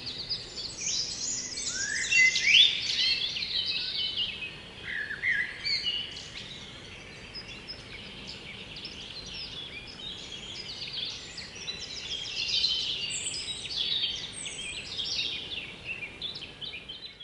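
Woodland birdsong: several birds singing at once with short phrases, trills and chirps over a faint steady hiss. The singing is busiest in the first few seconds and again near the end.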